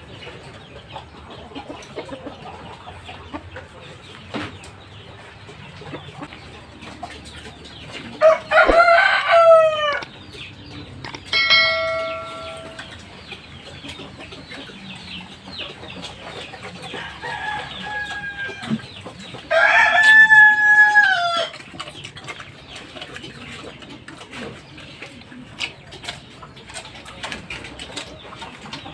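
A rooster crowing twice, about eight seconds in and again around twenty seconds, each crow held and then falling away at the end. A short steady ringing tone sounds just after the first crow, and a fainter call comes just before the second. A faint, constant clicking and crackling runs underneath.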